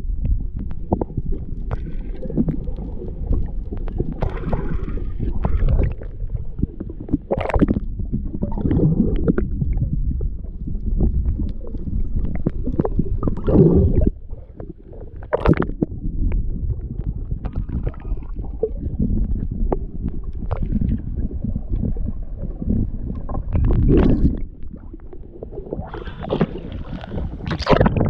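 Muffled water sloshing and gurgling around an action camera dipped in and out of the sea, with irregular louder surges of splashing and bubbles every few seconds.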